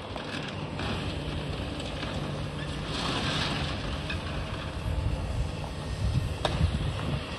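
Komatsu long-reach demolition excavator running steadily while it breaks down a concrete building, with concrete and debris crunching and rattling down. There is one sharp crack about six and a half seconds in, and wind buffets the microphone.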